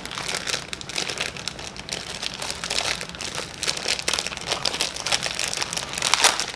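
Small plastic model-kit parts bag crinkling and crackling as it is pulled and worked to get it open, with a louder crackle near the end.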